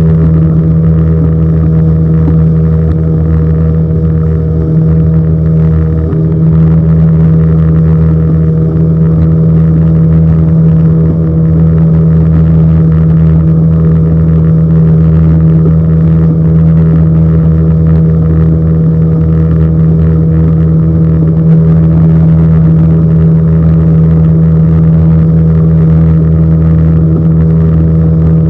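Small fishing boat's engine running at a steady speed, a constant low drone that holds one pitch throughout.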